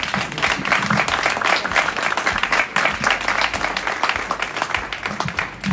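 A small group of people applauding, a dense patter of close hand claps.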